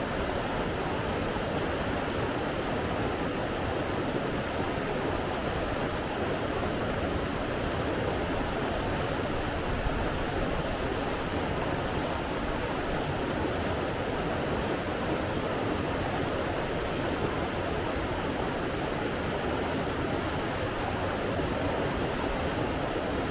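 Steady rushing of running water, an even, unchanging hiss.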